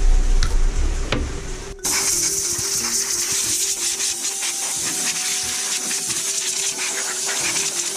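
Small hand wire brush scrubbing the corroded aluminium crankcase of a Honda Today AF61 scooter engine to take off the corrosion: a rapid, steady scraping hiss that sets in about two seconds in. Light background music underneath.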